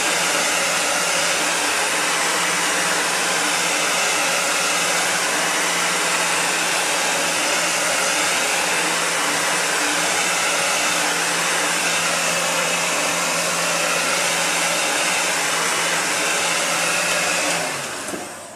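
A 500-degree heat gun blowing steadily, with an even rush of air and a low motor hum, heating a prefabricated foot orthotic until it is soft enough to mold. Near the end it is switched off and winds down.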